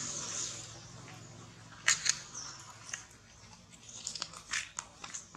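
Irregular short, sharp clicks and crackles, the loudest two close together about two seconds in, over a faint high hiss that fades out in the first second.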